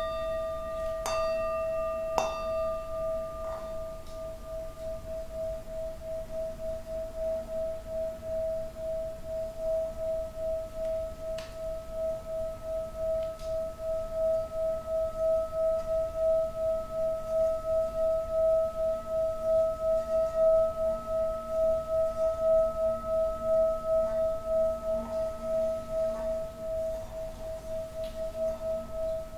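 Handheld metal singing bowl, struck a couple of times near the start and then rubbed around the rim with a wooden stick so that it sings one sustained tone. The tone pulses steadily, swells to its loudest around the middle and eases off a little near the end.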